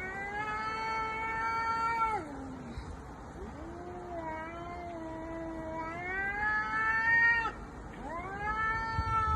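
Domestic cat yowling (caterwauling) in a fight standoff: three long, drawn-out yowls. The first drops in pitch at its end, and the second starts low and rises near its close.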